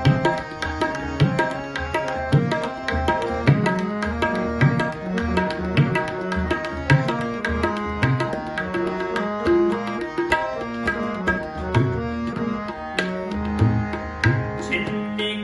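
Tabla played in a quick run of strokes, the bass drum adding low booming notes, over steady held chords from a harmonium: an instrumental passage of Sikh shabad kirtan.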